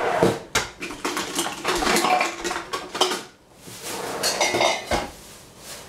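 Metal kitchenware being handled: pots and utensils clattering and clinking in three bursts, with a short metallic ring in the last one.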